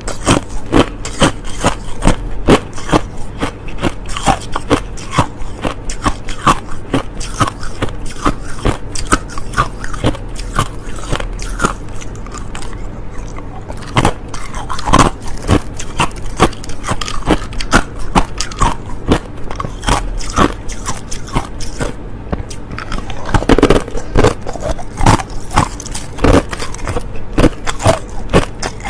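Hard clear crushed ice being bitten and chewed close to the microphone: rapid, irregular sharp crunches, several a second, without a break.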